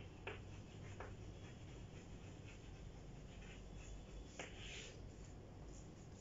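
Chalk writing on a chalkboard: faint scratching strokes with a few light taps of the chalk, and a longer scrape about four and a half seconds in as the heading is underlined.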